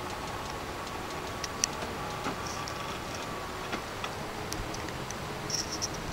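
Powered railroad switch setting back: the switch machine and moving points give several sharp clicks and ticks over a steady hiss. A faint steady whine stops about three seconds in.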